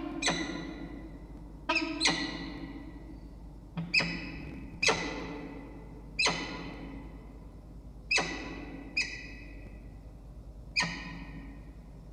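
About ten struck, ringing notes at uneven intervals. Each starts sharply and dies away over roughly a second, with a few in quick pairs.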